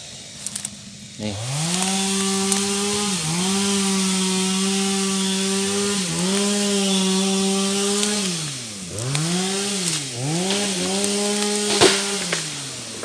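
Two-stroke chainsaw revving up to full throttle about a second in and held there, dipping briefly twice and coming back, then dropping and blipping quickly several times before running up again near the end. A sharp click sounds just before the end.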